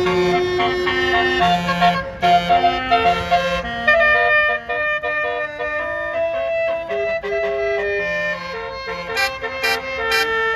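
A bus's 'telolet basuri' musical air horn plays a tune: a run of held notes that step up and down in pitch, several horn tones sounding together.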